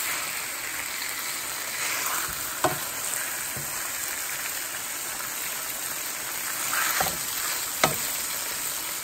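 Sockeye salmon fillets sizzling steadily in olive oil in a frying pan, the cooking water boiled away. A few short knocks of a utensil against the pan, two of them sharper, come in the middle and near the end.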